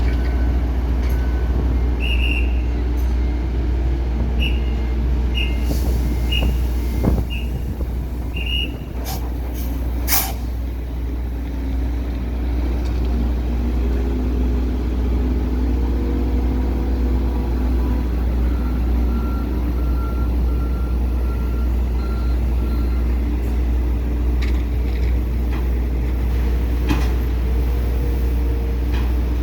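Trucks and cargo-handling machinery running with a steady low diesel rumble while wheat is unloaded from a ship into trucks. A truck's reversing alarm beeps repeatedly in the first several seconds, there is a brief air-brake hiss and clunks about ten seconds in, and a lower-pitched beeping comes near the middle.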